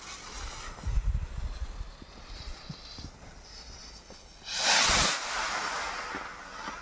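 A 29 mm consumer firework rocket's fuse fizzing faintly, then the rocket launching with a loud rushing whoosh about four and a half seconds in. A sharp bang of its burst in the sky comes right at the end.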